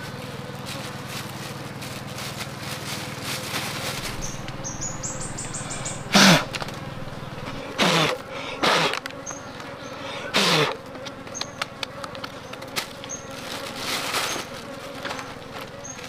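Wild honeybees buzzing around freshly cut honeycomb, a steady hum. Several loud buzzes, each falling in pitch, come about six, eight, nine and ten and a half seconds in.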